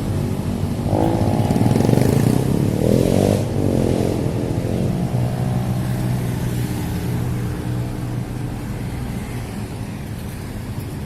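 An engine revving, its pitch rising and falling twice in the first few seconds, then running on more steadily and slowly fading.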